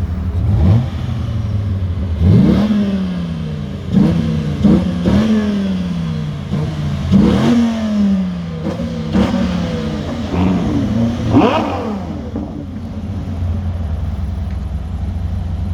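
Sports car engine on its stock exhaust, blipped from idle in a series of quick revs that rise sharply and fall back, then left to idle steadily near the end.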